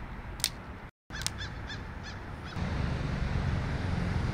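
A sharp click, then a quick run of about four short, falling bird calls a little over a second in, over outdoor ambience that turns into a louder steady low rumble in the second half.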